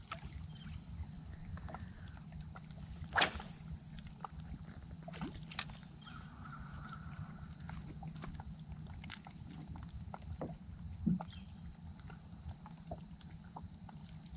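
Quiet ambience on a small fishing boat on a lake: a steady low hum and a faint steady high whine, with scattered small clicks and two sharper knocks, about three seconds in and again about eleven seconds in.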